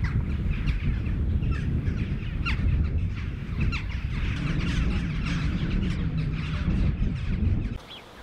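A flock of crows calling with many short overlapping caws, over a steady low rumble. Both drop away suddenly near the end.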